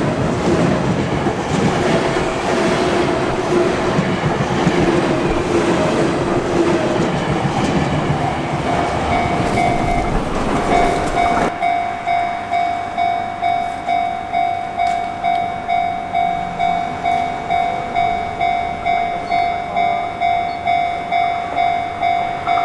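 A Sotetsu electric train rolls past over a level crossing with loud, dense wheel-and-rail noise, which cuts off about eleven seconds in. The level-crossing alarm is left ringing on its own, an electronic bell striking steadily about one and a half times a second.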